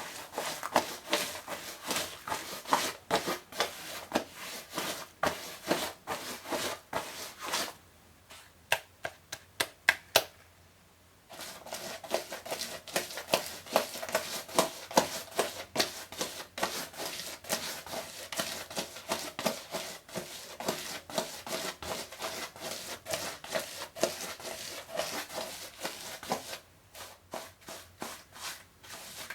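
Close handling noises: dense rapid clicking, tapping and rubbing. About eight seconds in they thin to a few separate sharp clicks, and the dense clicking picks up again about three seconds later.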